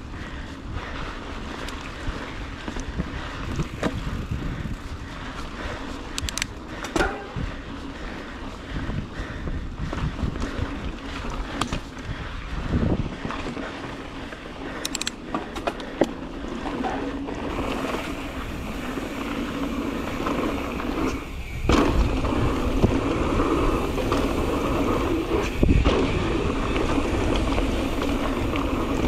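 Mountain bike ridden along dirt singletrack: a steady rush of tyres rolling over sand and roots, with sharp knocks and rattles of the bike over bumps. It gets louder and busier about two-thirds of the way through.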